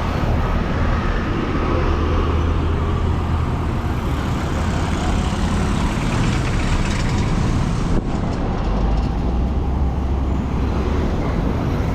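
Road traffic: vehicle engines and tyres passing in a steady low rumble.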